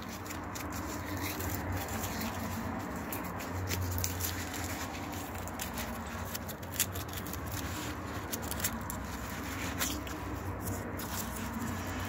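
Scratching and small clicks of hands working compost and small plastic plant pots while potting gladiolus corms, over a steady low hum.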